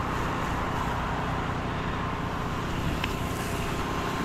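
Soft-wash spray gun spraying a fan of bleach mix at low pressure, about 50–60 PSI: a steady hiss over the even running of the rig's pump, with a short click about three seconds in.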